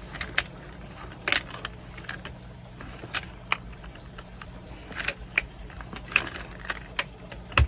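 Scattered light metallic clicks and clinks as a GrassGator trimmer head is spun by hand, threading its nut onto the trimmer's reverse-threaded bolt.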